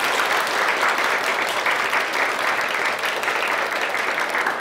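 A room full of students applauding, a steady clapping that holds throughout and begins to die away near the end.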